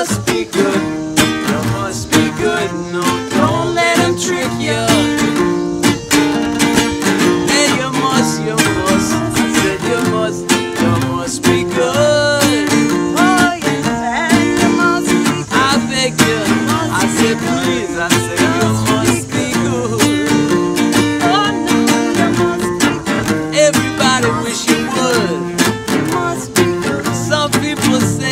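Two acoustic guitars played together, strummed and picked in a steady rhythm, with a singing voice over them.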